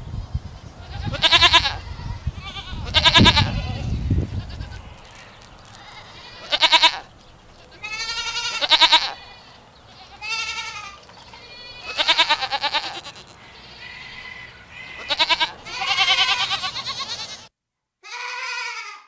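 Goats bleating: about ten separate quavering calls of differing pitch from several animals. A low rumble lies under the first few seconds.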